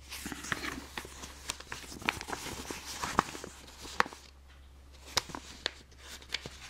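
Paper instruction sheet rustling and crackling as it is handled and unfolded, with scattered sharp ticks of the paper against the fingers.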